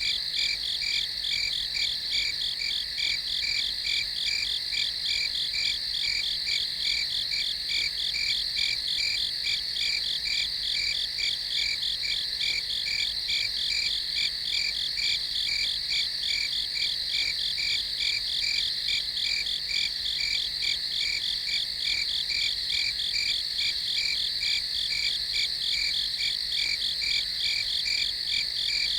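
Night chorus of crickets: a steady high-pitched trill with a rapid, evenly pulsing chirp beneath it, about three pulses a second.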